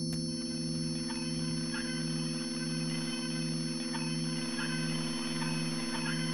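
Electronic drone of steady sine tones: a low tone pulses about three times every two seconds under several held higher tones, with faint short chirps scattered above.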